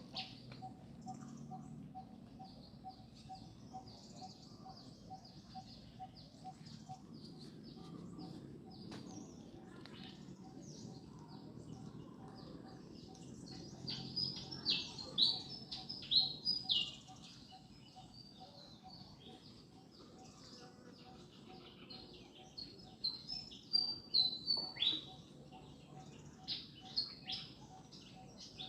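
Small birds chirping, with louder runs of sharp, falling chirps about halfway through and again near the end. A faint, regular pulsing tone, a bit over two pulses a second, runs underneath.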